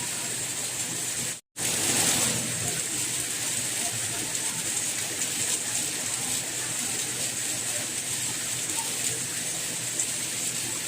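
Steady rainfall, an even hiss strongest in the upper range. It cuts out completely for an instant about a second and a half in, then comes back slightly louder.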